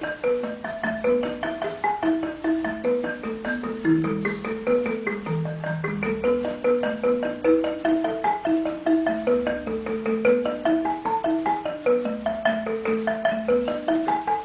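Background music: a quick, steady melody of short struck notes with a lower line of notes beneath it, in a marimba-like sound.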